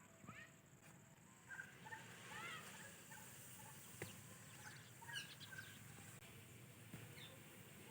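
White Indian ringneck parakeet chirping faintly, short quick chirps in scattered clusters, with a single sharp click about halfway through.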